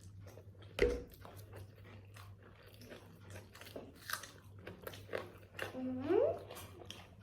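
Close-up chewing and biting of biryani, with many small wet mouth clicks and crunches. A sharp knock sounds about a second in, and a short rising voice sound near the end.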